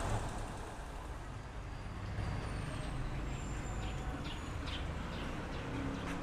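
Low steady background rumble, with a few faint short scratches a little past halfway as a pencil marks lines on a steel fender.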